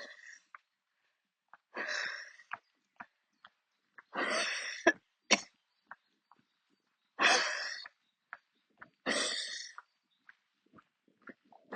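A woman's coughing fit: a series of harsh, breathy coughs, one about every two seconds, from a lung coughing attack.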